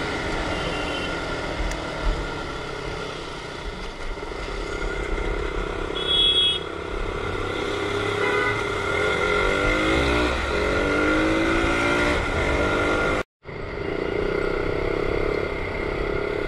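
Motorcycle engine running in city traffic, its pitch rising several times between about nine and twelve seconds in as it accelerates. A short horn beep sounds about six seconds in, and the sound drops out completely for a moment near the end.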